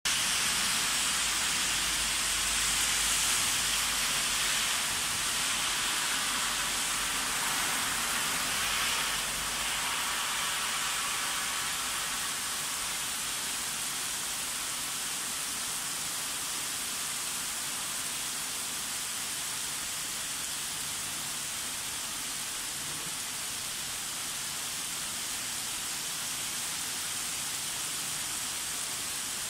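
Heavy rain pouring steadily onto a street and pavement, a dense, even hiss. A low rumble lies underneath for the first ten seconds or so and then fades out.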